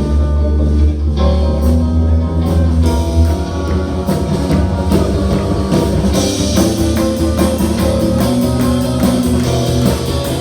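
Live punk rock band playing loud, with electric guitar, bass and drums; held bass notes in the first few seconds, then the drums settle into a steady beat and cymbals come in about six seconds in.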